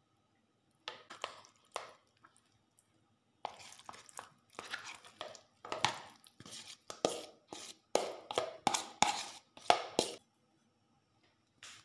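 A metal spoon scraping and knocking against the inside of a clear plastic bowl while it scoops out wet sago pearls and tips them into a plastic basin, as a run of irregular scrapes and taps that starts about a second in and stops shortly before the end.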